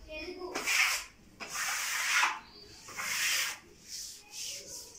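Wallpaper being smoothed onto the wall with a hand smoothing tool: several rough rubbing strokes across the paper, each lasting under a second, with short pauses between them.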